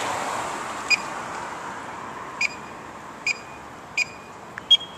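Bikeshare docking station's card reader beeping as a key card is held to it: four short beeps about a second apart, then a higher, sharper beep near the end, and the dock does not release the bike. A passing car's hiss fades over the first couple of seconds.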